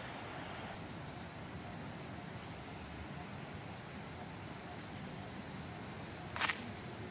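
Outdoor garden ambience: an insect's steady, high-pitched trill comes in about a second in over a soft background hiss. A single sharp click sounds near the end.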